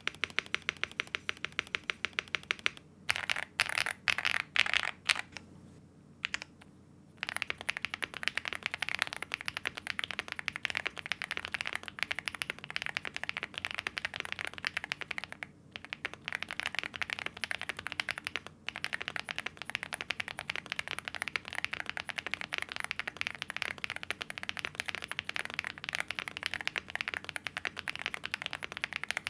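Chilkey ND75 75% mechanical keyboard being typed on: rapid clacking of its Gateron linear switches under double-shot PBT keycaps. There are a few short bursts of keystrokes with brief pauses about 3 to 7 seconds in, then fast, continuous typing from about 7 seconds on.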